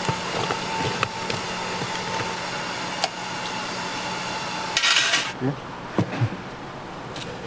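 Snack-bar kitchen noise: a steady machine hum with light clinks of metal utensils, a short loud hiss about five seconds in, after which the hum is gone and a few dull knocks follow.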